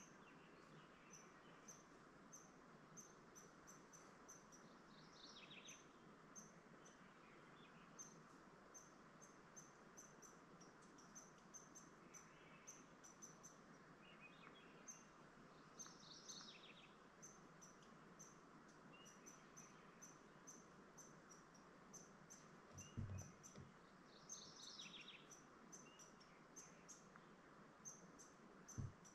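Faint woodland birdsong: a steady series of short, high chirps a few times a second, with a short falling song phrase every ten seconds or so. Two soft, low thumps come near the end.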